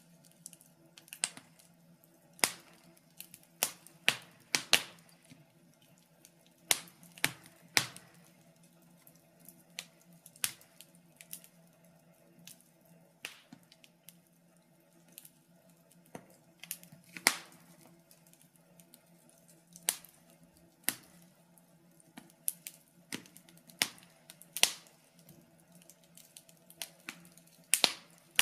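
Wood fire burning in a fireplace, crackling with sharp, irregular pops and snaps, some much louder than others, over a faint steady low hum.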